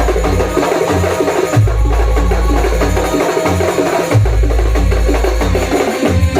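Gamelan music for a Janger dance: fast, dense drum and struck-percussion playing over deep, long low notes that recur every second or two.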